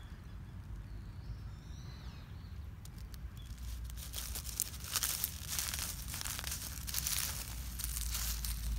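Dry fallen leaves crunching and crackling underfoot, a run of sharp rustles starting about three seconds in and growing louder toward the end.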